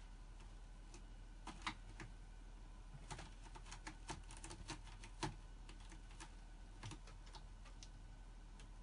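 Cat's claws raking a sisal-rope scratching post: faint, irregular clicks and scratches that come in small flurries.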